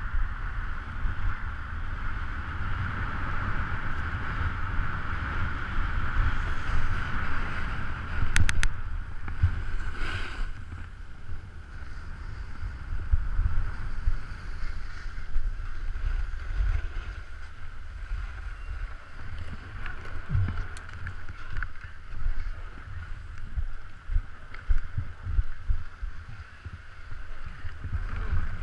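Wind buffeting the microphone, with a steady hiss underneath and a few brief clicks.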